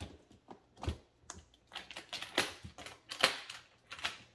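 Aluminium-framed makeup train case being closed: a run of sharp clicks and knocks as its trays and lid fold down and shut, with a low thump about a second in.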